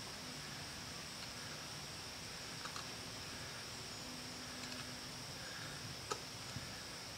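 Knife shaving a small piece of wood by hand: a few faint scrapes and light clicks, the sharpest about six seconds in, over a steady high hiss.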